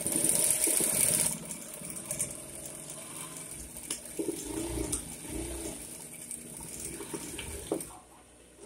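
Cotton quilt patches being handled and slid across a table. A loud burst of fabric rustling comes in the first second, then softer rustling and shuffling continue.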